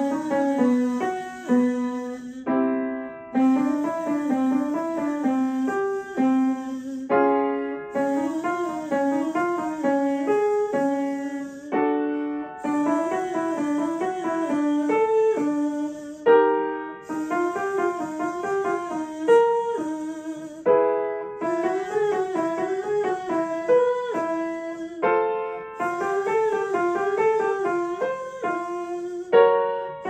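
A woman sings a vocal warm-up exercise: a short up-and-down scale pattern, repeated about every four and a half seconds and each time a step higher. An upright piano plays a chord under each repetition.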